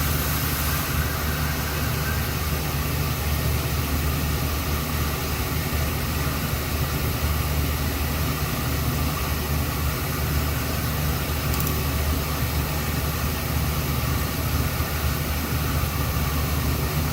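Gas-fired rooftop HVAC unit running with a steady low hum from its motors during an ignition attempt. No burner lights, and the sound does not change: the unit is failing to ignite, which the technician puts down to weak igniter sparking.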